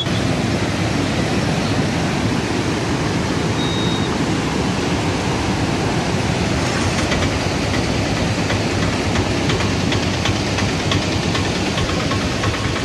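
Steady rush of floodwater pouring over an overflowing lake, a loud even roar with no pitch to it.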